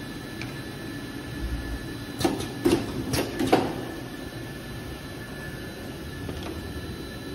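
Bottle filling and capping line running with a steady mechanical hum and a faint high whine. About two seconds in, four sharp clicks and knocks come within a second and a half.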